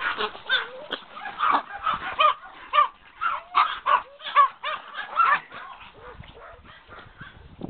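Chihuahuas yapping and barking in short, high calls, several a second, growing sparse in the last couple of seconds.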